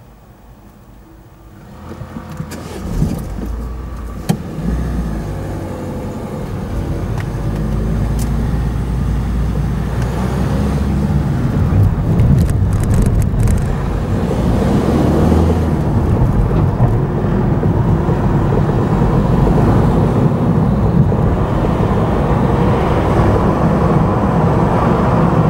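Car engine and tyre noise heard from inside the cabin as the car pulls away and gathers speed. It is quiet at first, builds from about two seconds in, then settles into a steady drone. A couple of sharp knocks come early on, with some rattling in the middle.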